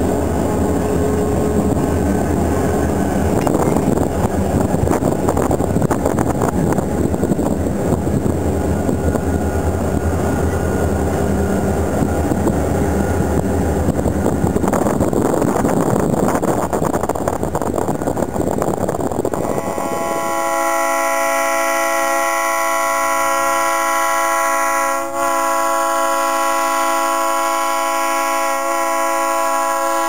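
Diesel locomotives rumbling alongside, mixed with wind and road noise from a moving car. About two-thirds of the way in, the sound changes to an SD40 locomotive's horn: several notes sounding together in one long, loud, steady blast, broken once briefly near the end. The horn is sounded as the locomotive prepares to couple to its train.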